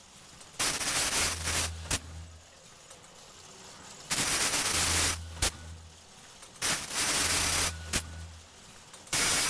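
Vertical rice packing machine cycling: about every two and a half to three seconds a rushing hiss with a low hum under it, ending in a sharp clack, four times over.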